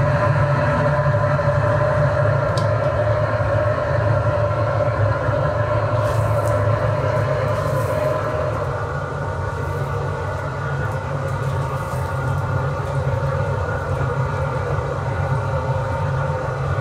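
Steady machine drone of factory cooking equipment around a large stainless steel pan: a low hum with several steady tones above it, dipping slightly about midway.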